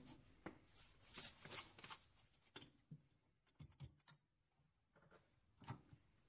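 Near silence at a stopped metal lathe, broken by a few faint clicks and light knocks of tooling being handled.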